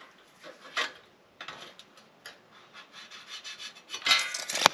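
A tape measure and marker being worked over a sheet-metal wall thimble plate: scattered short rubs and scrapes of metal and plastic, with a louder scraping rattle near the end.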